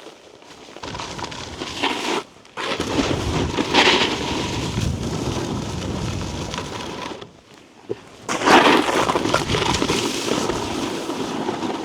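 Snowboard edges scraping and chattering over icy, choppy snow, with wind on the microphone. The sound drops away briefly about two and a half seconds in and again about seven and a half seconds in, then comes back loud.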